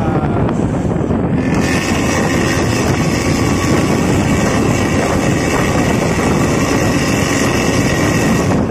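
Loud, steady road and engine noise of traffic on a highway, with wind buffeting the microphone. About a second and a half in, a steady high-pitched tone joins and holds for about seven seconds, then cuts off suddenly near the end.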